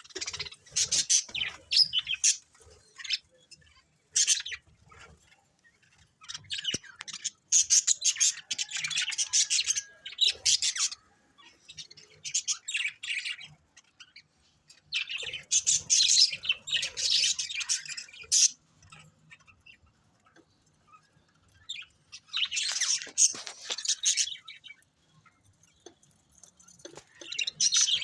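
Parrots chirping and squawking in bursts of a few seconds each, with short pauses between them.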